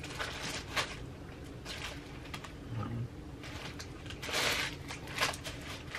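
Plastic snack wrappers rustling and crinkling as packets are handled in a cardboard box, in short scattered bursts, the loudest about four and a half seconds in.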